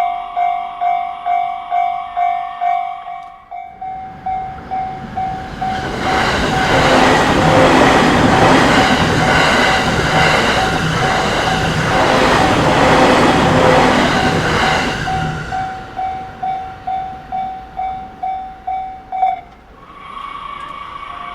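Japanese level-crossing warning bell ringing about twice a second while a train passes through the crossing, its noise rising over the bell for about nine seconds in the middle and then fading. The bell stops about nineteen seconds in, and a steady tone follows.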